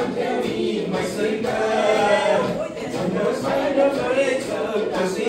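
A song sung by many voices together, with music underneath.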